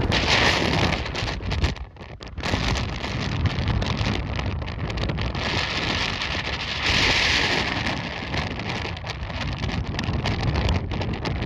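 Blizzard wind gusting hard against the microphone, a rumbling buffet with spells of loud hissing about half a second in and again from about five and a half to seven and a half seconds, and a brief lull at about two seconds.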